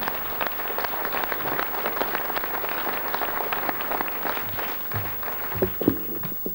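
Audience applause, a dense patter of many hands clapping that thins out toward the end. A few low knocks sound near the end.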